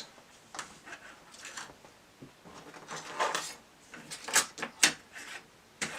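Small hard objects handled on a desk: a scattered run of light clicks, clatters and scrapes, with the sharpest knocks a little after four seconds, near five seconds and again just before the end.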